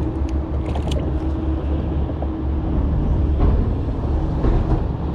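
Steady low rumble of motor traffic, with a faint steady hum over it for the first couple of seconds and a few short clicks about a second in.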